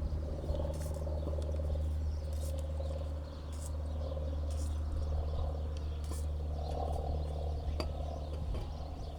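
Frogs calling in a steady trilling chorus over a constant low hum, with several short hissing bursts along the way.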